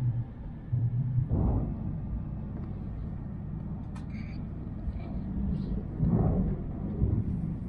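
Tohoku Shinkansen bullet train running at speed, heard from inside the passenger car: a steady low rumble that swells briefly twice, about five seconds apart.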